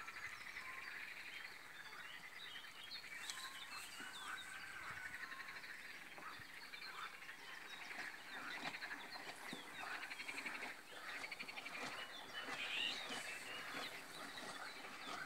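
A chorus of frogs croaking, with birds chirping among them; many short overlapping calls throughout.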